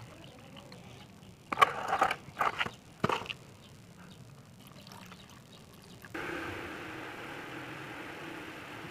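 A glass beaker being handled over plastic bowls and a filter funnel: a quick cluster of sharp knocks and clinks about a second and a half in. About six seconds in, a steady rushing noise starts suddenly and keeps going.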